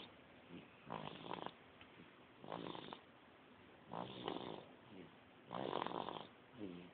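Two-month-old baby snoring, a short snore with each breath, about one every second and a half.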